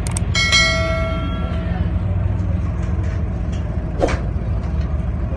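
Steady low rumble of the tour boat's engine. A single bell-like metallic ring is struck about half a second in and fades over a second or so, and a short knock comes about four seconds in.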